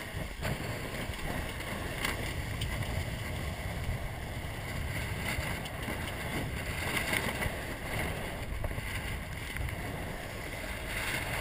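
Steady rushing of wind on the microphone and water streaming and splashing along the hull of a 470 sailing dinghy driving through chop, with a few sharper splashes of spray.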